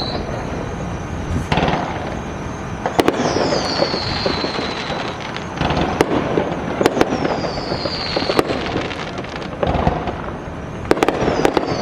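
Fireworks going off in a continuous crackle, with sharp bangs scattered throughout and several whistles that fall in pitch.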